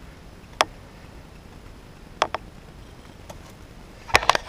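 A few sharp, isolated clicks and knocks, then a quick run of them near the end.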